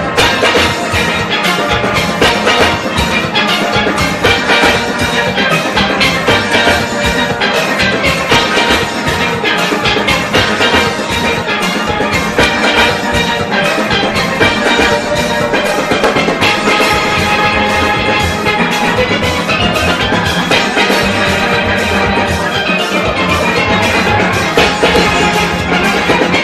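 A full steel orchestra playing live: dozens of steel pans, from high tenor pans down to barrel bass pans, struck together in a dense, continuous rhythmic passage.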